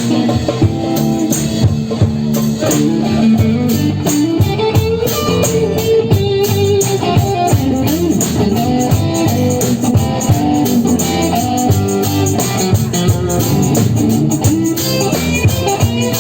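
Live band jam: electric guitar playing lead lines with pitch bends over a steady drum beat.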